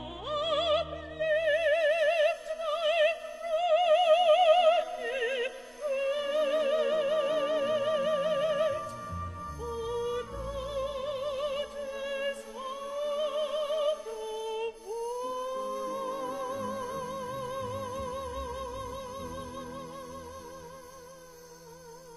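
A female classical singer with wide operatic vibrato, singing held phrases over an orchestra. About two-thirds of the way in she slides up into one long held note that slowly dies away.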